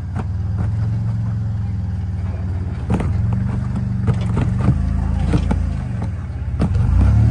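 Solid-axle-swapped Toyota Tacoma's engine running steadily at low revs as the truck crawls up a rock ledge, with several sharp knocks from about three seconds in.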